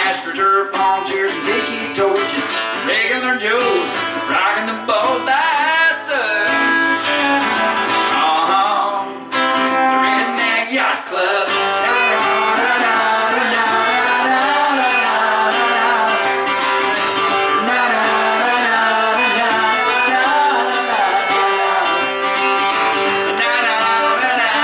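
Live acoustic country song: acoustic guitar with singing, the music running steadily throughout.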